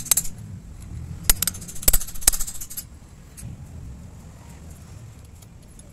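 Sharp metal-on-metal clinks and clicks from handling the steering rack's pinion shaft and its loose parts in the housing: a few distinct clinks in the first three seconds, then quieter handling.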